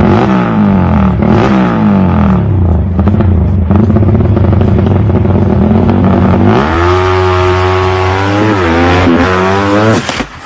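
Suzuki Satria FU racing motorcycle engine revving hard, its pitch swinging up and down, then rising sharply about six and a half seconds in and held high before it cuts off suddenly near the end.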